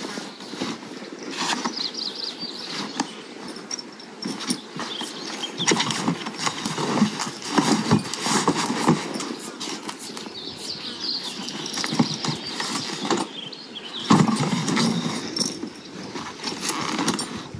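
Irregular knocks, clunks and rustling as gear and rope are packed into leather pack boxes, mixed with shod mules shifting their hooves on asphalt.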